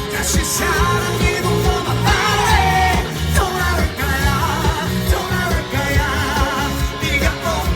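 Pop-rock band playing live, with drums, bass and guitars under a sung or guitar melody and a steady, driving beat.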